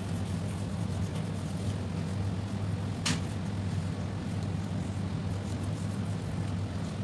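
Steady low droning hum, with one short sharp scrape about three seconds in as a kitchen knife skins a raw fish fillet on a plastic cutting board.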